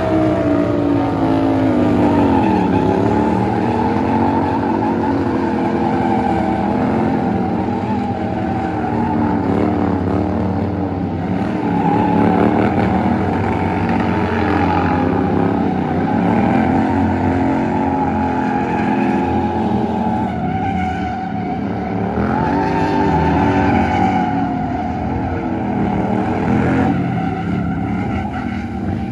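Sportbike engine revving hard during a burnout, its pitch rising and falling several times, with the rear tyre spinning and screeching on the asphalt.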